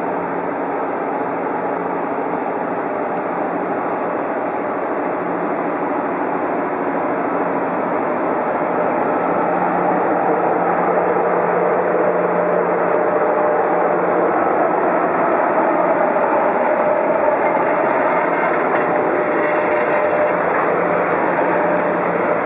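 EF66 DC electric locomotive hauling a container freight train as it pulls away and passes close by. It makes a continuous hum with a steady tone, growing louder partway through as the locomotive comes alongside.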